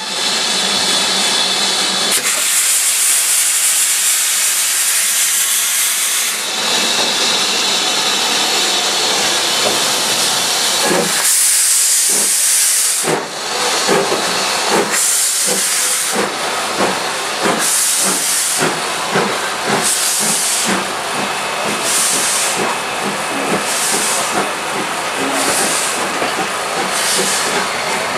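Steam locomotive hissing steam steadily, then pulling away. From about halfway, evenly spaced chuffs come with bursts of steam from the cylinders, over a light clicking of wheels on the rails.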